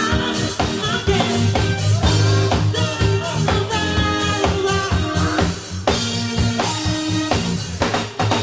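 Live band playing an upbeat dance number, with a drum kit keeping a steady beat under keyboards and bass.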